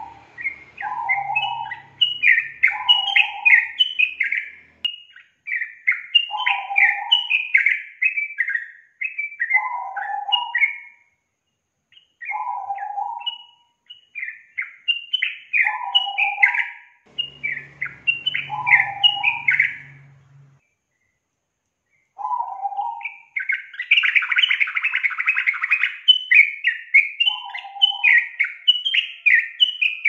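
Yellow-vented bulbul (trucukan) singing: repeated short bubbly phrases, each a low note followed by a quick run of rising and falling higher notes, with brief pauses between phrases. About two-thirds through, the song turns into a denser, harsher chatter for a couple of seconds.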